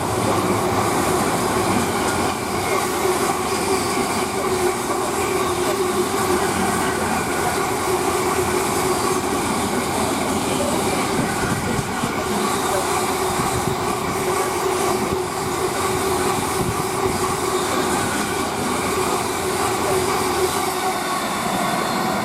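Freightliner container freight train passing through, its wagons running steadily over the rails with a constant rumble, rail clatter and a steady ringing tone from the wheels.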